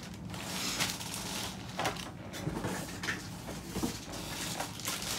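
Handling noise of hard plastic graded comic book slabs being moved and set down: rustling with several light knocks scattered through.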